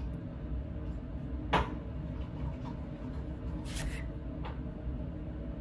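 A wooden popsicle stick stirring thickening borax–PVA slime in a glass beaker, with a sharp knock about a second and a half in, a short scrape near four seconds and a smaller click just after, over a steady low room hum.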